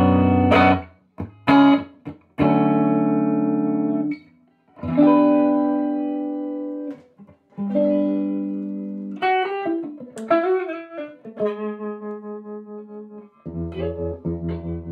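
Electric guitar played through a Fender Excelsior tube combo amp (push-pull 6V6, single 15-inch speaker). Strummed chords are left to ring out between short pauses, with a few bent single notes about two-thirds of the way in. Near the end a held chord pulses evenly in volume, about three to four times a second.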